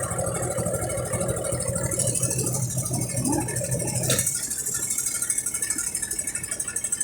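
Brastemp Ative 11 kg top-loading washing machine running mid-cycle. Its motor hums with a fast rattle. About four seconds in, a sharp click sounds and the low motor hum cuts out.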